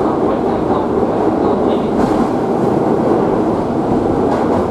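Electric commuter train running, heard from inside the passenger car: a steady rumble of wheels on the rails.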